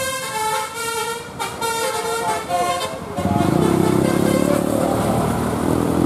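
Bus 'telolet basuri' musical horn playing a melody of short flute-like notes. About three seconds in it gives way to a bus's heavy diesel engine revving, louder and low.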